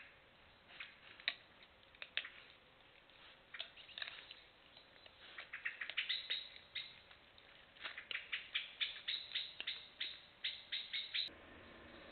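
Roe deer feeding right beside the trail camera: crisp clicks and crunches of nibbling and chewing, scattered at first and then coming in quick runs, until they stop abruptly near the end and only a faint steady hiss remains.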